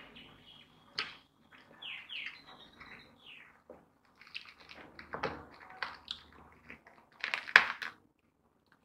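Faint bird chirps mixed with eating noises: fingers tearing fried fish on a steel plate, with scattered soft clicks and a sharper click or two about seven and a half seconds in.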